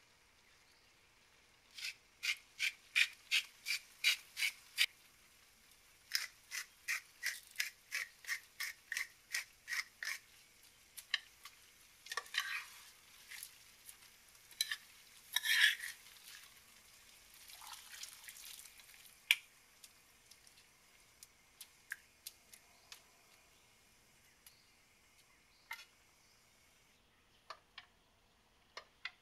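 Metal spoon stirring rice and seafood in a frying pan, scraping across the pan in quick regular strokes, about three a second, in two runs, then slower scattered scrapes and clinks. A few light clinks near the end as a glass lid is set on the pan.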